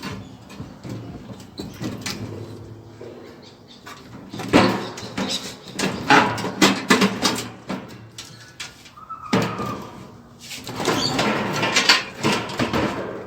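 Metal parts of a microwave being worked loose and handled, clattering and scraping, in two busy stretches starting about four and ten seconds in.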